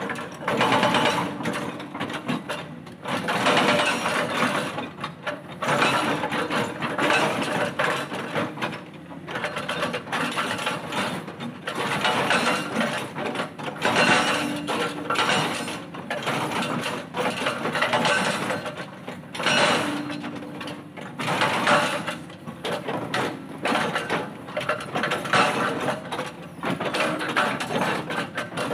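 Hydraulic breaker on a tracked excavator hammering boulders: rapid chattering blows in bursts of a second or two with short pauses between, over the excavator's running engine.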